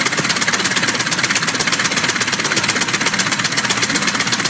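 Homemade compressed-air engine running on two cylinders with its new ring-driven valve pushrod system: a loud, steady, fast pulsing hiss of air exhausting from the cylinders.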